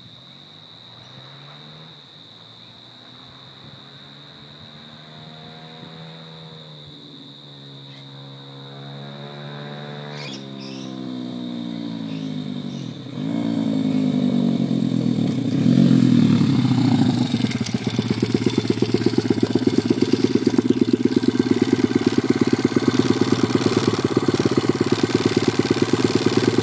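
Pit bike with a GPX 125 race engine, a single-cylinder four-stroke, revving hard through the gears as it approaches, faint at first and growing steadily louder. Its pitch climbs, then drops sharply at each shift, about ten and thirteen seconds in. From about seventeen seconds it settles into a steady, evenly pulsing idle close by.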